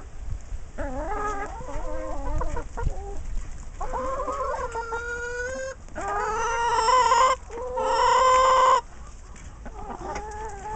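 Flock of brown hens clucking as they feed. In the middle come three long, loud, drawn-out calls one after another.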